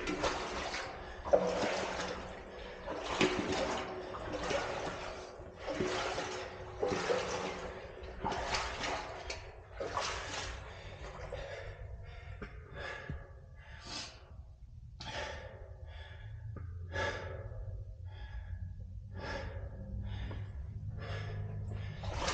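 A person breathing hard and fast, about one breath a second, the breaths growing shorter and more spaced in the second half, with a faint low hum underneath later on.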